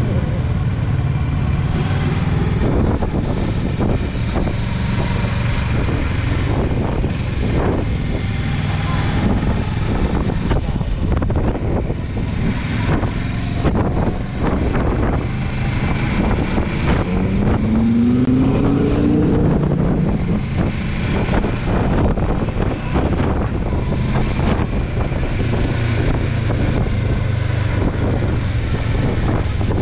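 A vehicle's steady low rumble, with wind buffeting the microphone. About two-thirds of the way through, a brief rising pitched tone.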